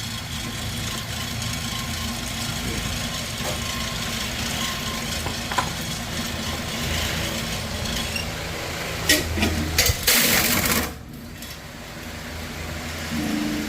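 Steady mechanical hum from a running motor, with a few sharp metallic clicks about nine seconds in and a short loud rush of noise just before eleven seconds, after which it turns quieter.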